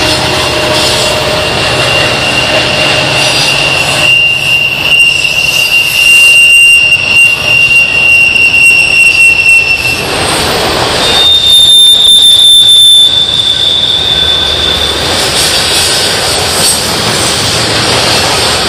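A freight train's cars rolling past with a steady rumble of steel wheels on rail. The wheel flanges squeal in one long high note for the first ten seconds, then in a higher note for a few seconds more.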